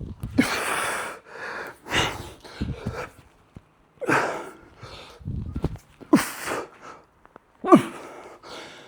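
A man breathing hard under exertion: about five sharp, forceful exhalations roughly every couple of seconds, some ending in a short falling grunt, in rhythm with reps of snatches.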